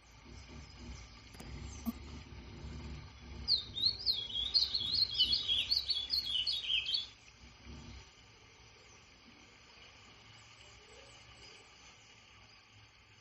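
A songbird sings one fast, high-pitched phrase of short, downward-slurred notes lasting about three seconds, over a low rumble that stops after about eight seconds.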